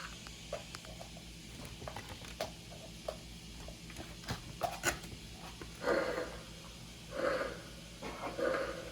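Scattered light clicks and taps from small plastic toys being handled, with a few brief, louder handling sounds in the second half.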